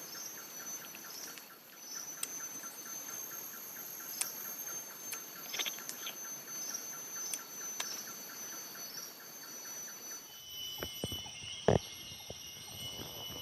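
Tropical forest insect chorus: several steady high-pitched buzzes layered with a fast, evenly pulsing chirp. About ten seconds in the chorus changes abruptly to a different steady tone, and a few sharp clicks follow.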